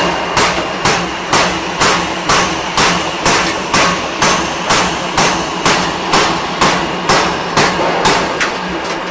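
A forging machine's ram strikes a glowing ring-shaped forging in rapid, evenly spaced blows, about two a second, over a steady machine hum. The blows stop near the end.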